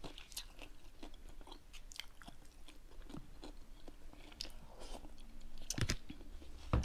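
A person chewing a mouthful of batter-fried fish and rice, with faint, irregular crunching and mouth sounds. There are a couple of sharper knocks near the end.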